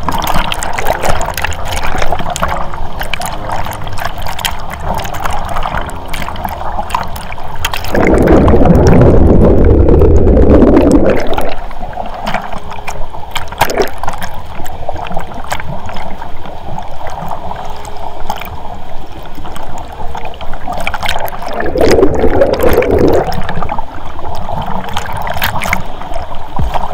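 Hydromassage whirlpool water bubbling and splashing right against the microphone. Twice it swells into a louder churning rush lasting a couple of seconds or more.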